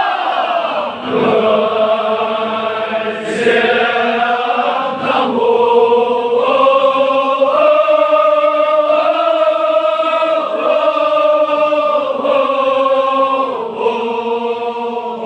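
Men's voices chanting a Kashmiri marsiya, a Shia elegy, together in long drawn-out held notes that step up and down in pitch.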